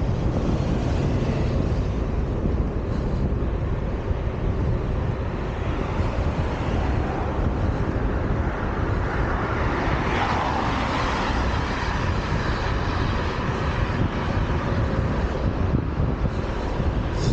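Steady wind rumble on the camera's microphone with road noise from a bicycle riding along a city street, swelling broadly for a few seconds about halfway through.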